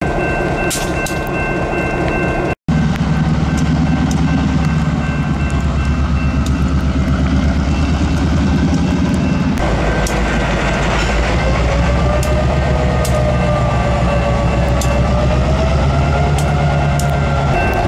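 EMD SD9 diesel locomotive, a 16-cylinder two-stroke EMD 567, running under load as it hauls a freight train past, with a deep low engine rumble and the cars rolling over the rails. It cuts out briefly about two and a half seconds in. From about ten seconds in the sound gets louder and a wavering high tone rides over the engine.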